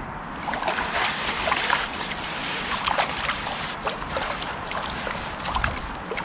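Water splashing and dripping in short, irregular bursts as a hooked roach is drawn over a landing net and the net is lifted out of the river.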